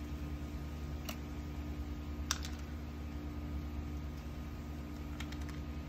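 A few sparse small clicks and pops, the loudest about two seconds in, from a stick being worked into slime in a small plastic tub. A steady low hum runs underneath.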